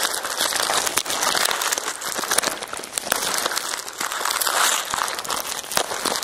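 Hands crumpling and pulling at a taped brown kraft-paper parcel: continuous crinkling and crackling of the paper and tape as it is worked open.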